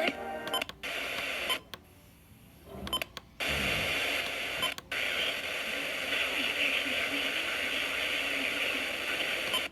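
Weather radio broadcast of a flash flood warning breaking up: crackle and clicks, a near-silent gap of about a second, a short falling low tone, then about six seconds of steady static hiss.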